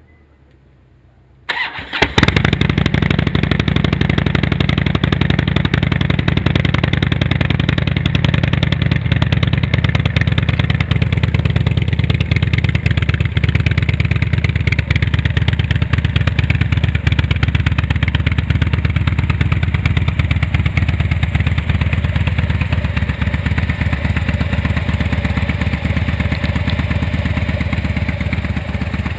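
Harley-Davidson FXDC Dyna's V-twin engine, breathing through a Doublehead Type II silencer, started up about a second and a half in with a brief crank, then idling steadily with a dense pulsing exhaust beat.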